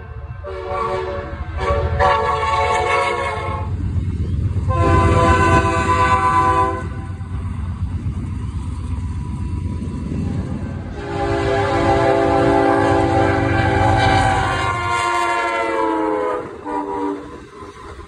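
Diesel locomotive air horn sounding a series of chord blasts, several about two seconds long and one of about four seconds, with a short final blast near the end. The pitch drops as the train passes, over the steady low rumble of the moving train.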